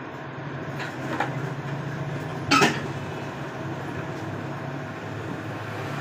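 Handling noises on a repair workbench over a steady background hum: a couple of light clicks about a second in, then one louder clatter about two and a half seconds in as a tool is set down on the bench.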